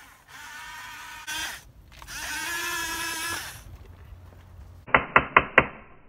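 Electric motors and gearboxes of a Huina 580 RC excavator whining in two spells as it drives and moves its arm, with a short harsh burst between them. Near the end come four sharp knocks in quick succession.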